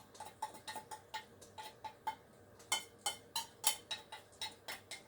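Spoon clicking and scraping against a tin of canned cat food and a dish as the food is scooped out: a quick, uneven run of small metallic clicks, about five a second.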